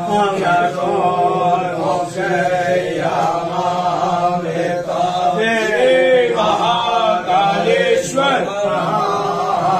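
Devotional chanting: a melodic sung chant over a steady low drone.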